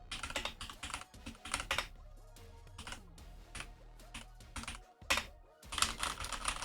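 Typing on a Keychron K8 Pro mechanical keyboard with Gateron Brown tactile switches: a run of irregular keystrokes, with a short pause about five seconds in.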